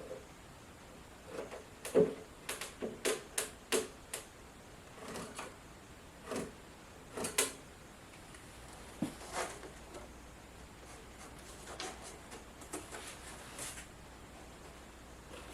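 Irregular light knocks and clicks, like wooden parts or tools being handled. A quick run of about a dozen comes in the first half, the sharpest about two seconds in and another near the middle, then a few softer ones follow.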